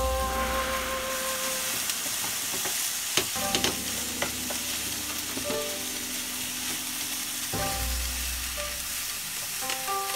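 Fried rice with seasoning sauce sizzling in a frying pan over a gas flame while a spatula stirs it. A few sharp clicks of the spatula against the pan come around the middle.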